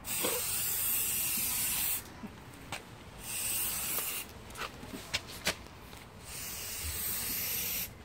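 Aerosol spray paint can hissing as it sprays paint onto a garage door, in three bursts: about two seconds at the start, a short burst about three seconds in, and another of about two seconds near the end. A few small clicks fall between the bursts.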